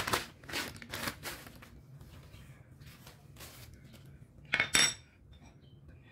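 Plastic bag rustling as a new steel inner tie rod (rack end) is unwrapped, then a sharp metallic clink about four and a half seconds in as the tie rod is set down against the old one on a tile floor.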